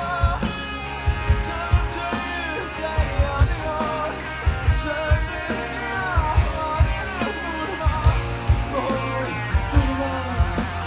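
Live rock band playing: steady kick drum and drums under electric guitars, with a voice singing over them.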